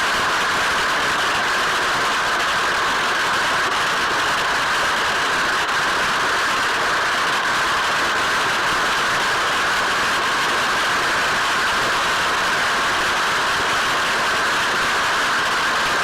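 Heavy hailstorm: a dense, steady roar of hailstones with no let-up and no distinct separate hits.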